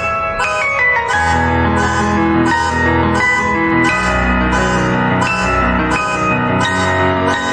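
Piano music: a melody of changing notes over a regular pulse of high bursts about twice a second.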